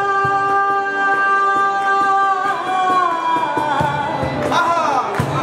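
A live band playing: a long held melody note slides downward about halfway through and wavers near the end, over a steady beat of drum hits.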